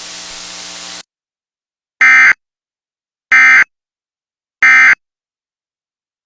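Broadcast hiss that cuts off about a second in, followed by three short, loud, buzzy electronic data bursts about 1.3 s apart: the Emergency Alert System's end-of-message code, signalling that the alert broadcast is over.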